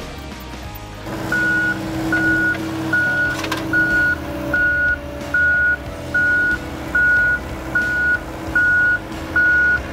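Backup alarm on heavy equipment beeping steadily, about one beep every 0.8 seconds, starting about a second in, over an engine running.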